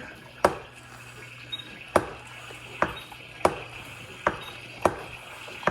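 Hand-pumped Mityvac oil extractor drawing engine oil out of the crankcase through the dipstick tube: about seven sharp, irregularly spaced clicks over a faint steady hum.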